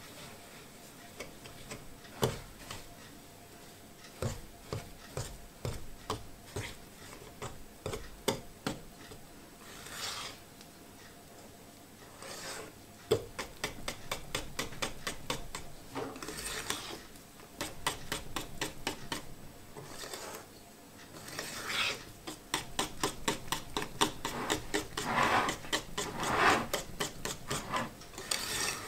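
A kitchen utensil scraping and clicking against a bowl or board: scattered knocks and scrapes at first, then a quick run of several clicks a second with scraping strokes from about halfway through.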